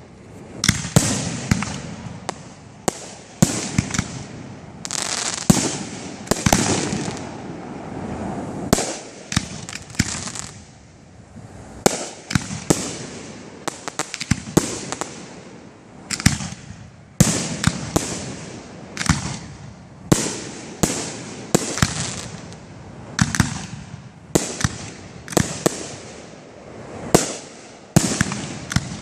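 Fireworks display: aerial shells launching and bursting in quick succession, a steady run of sharp bangs, some coming close together. The firing eases off briefly about ten seconds in.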